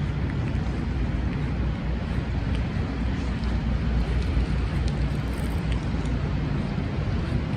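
Steady low rumble of a city street in a snowstorm: traffic noise mixed with wind on the microphone.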